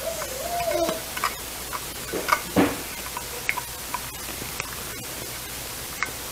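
Spoon scraping and tapping against a small metal measuring cup, emptying sauce into a glass mixing bowl: a run of light clicks and scrapes, loudest about two and a half seconds in. A short wavering tone sounds in the first second.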